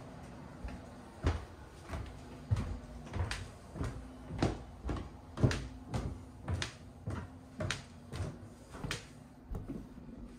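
Footsteps climbing a wooden staircase, about fifteen steady knocks at roughly two a second, with a steady low hum underneath.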